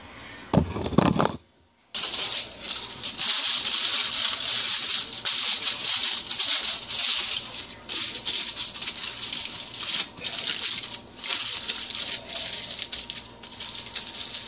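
Aluminium foil crinkling and rustling as it is pressed down over the rim of a pot, a dense crackle broken by many short pauses.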